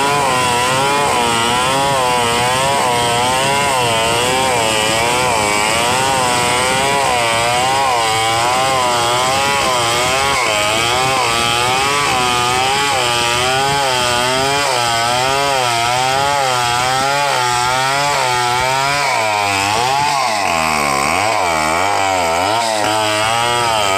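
Stihl 070 chainsaw cutting lengthwise along a log under load, the engine's pitch wavering steadily up and down about once a second. The swings grow deeper in the last few seconds.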